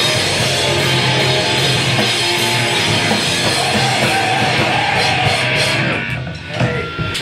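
Live hardcore/screamo band playing loud: distorted electric guitars, bass and drum kit in a dense wall of sound that breaks off about six seconds in.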